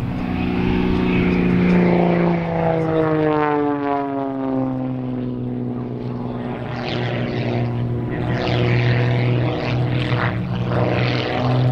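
MXS aerobatic plane's piston engine and propeller running at high power as it flies past. Its pitch falls steeply about two to four seconds in, then settles into a steady drone.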